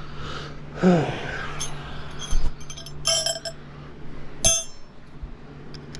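Sharp metallic clinks and ringing taps of hand tools working the master-link retaining clip onto a motorcycle drive chain, the loudest a cluster about three seconds in and a single ringing clink near four and a half seconds, over a steady low hum.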